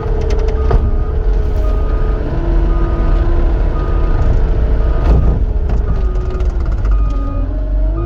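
Cat 259 skid steer's diesel engine running under load, its pitch shifting as the machine works, with a backup alarm beeping repeatedly as it reverses. Two sharp knocks, less than a second in and about five seconds in.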